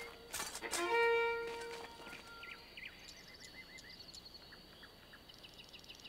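Soft background score: a few sustained string notes about half a second in that fade away, followed by quiet bird chirps and short trills for the rest.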